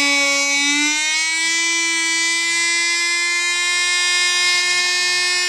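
Small electric drill running at speed with a high, steady motor whine, which rises slightly in pitch about a second in and then holds.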